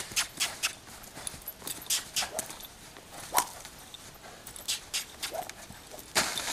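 Hoofbeats of a young saddled Quarter Horse trotting and loping on the dirt of a round pen: irregular thuds and clicks, with a louder burst near the end.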